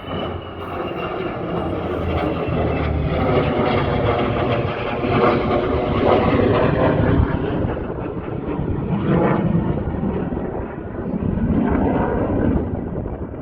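F-35 fighter jet's single turbofan engine roaring as it flies past, the roar swelling to its loudest about halfway through, easing, then swelling again near the end.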